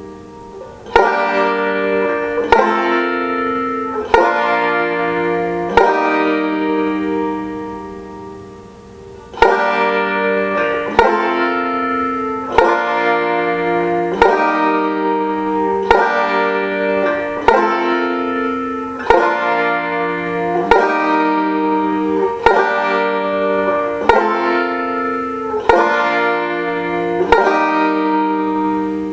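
Five-string banjo tuned to B flat, played as a run of full chords struck about every second and a half, each left ringing and fading. About a third of the way through, one chord is held and rings out for a few seconds before the rhythm picks up again.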